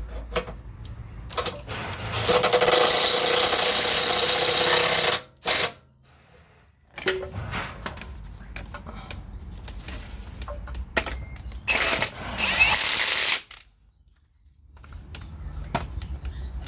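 Impact wrench hammering as it runs down the engine mount bolts: a burst of about three seconds, a brief blip, then a second burst of about a second and a half, with small tool clicks between.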